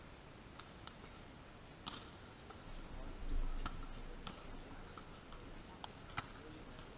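Open-air court ambience: a handful of short, sharp taps at irregular intervals and a brief low rumble of wind buffeting the microphone about three and a half seconds in.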